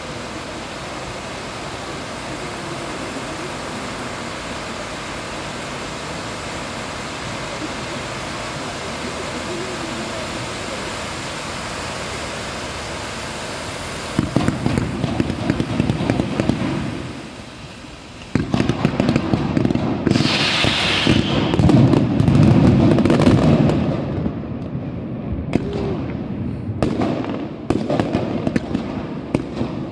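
A fireworks display. For about the first half, sparking fountains on the water give a steady hiss. Then comes a dense barrage of rapid crackles and bangs, with spaced sharp reports near the end.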